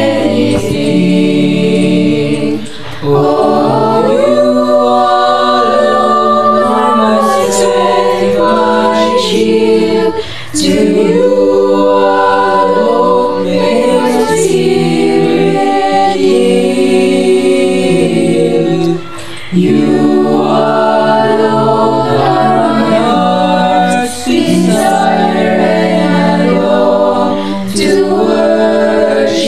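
Mixed choir of teenage voices singing an English worship song a cappella, in long held phrases broken by four short pauses. The lyrics include 'to you alone may my spirit yield'.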